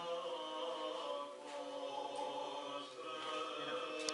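Choral chanting in long held notes.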